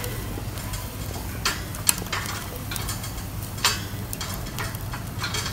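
Skewered prawns sizzling faintly over a charcoal fire on a wire grill rack, with a few sharp clicks of the metal skewers against the rack as they are moved and turned. A steady low hum runs underneath.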